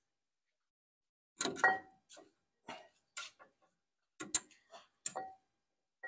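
Brake pad being worked into a C6 Corvette caliper abutment bracket: a series of sharp metallic clicks and clinks, spread irregularly, some ringing briefly.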